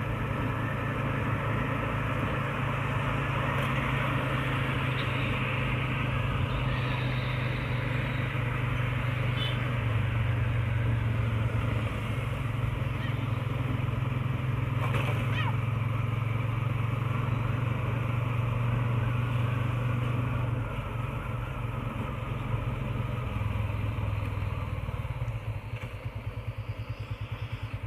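Motorcycle engine running steadily while riding, with a rush of noise over it. Near the end it eases off, goes quieter and falls to a slower, pulsing beat.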